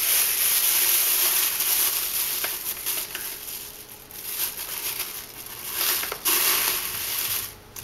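Thin green Arm & Hammer plastic litter-disposal bag rustling and crinkling as it is pulled open and fitted over the rim of a small can, loudest in the first few seconds.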